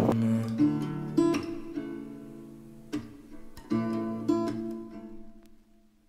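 Background music: a guitar strumming chords, dying away about five seconds in.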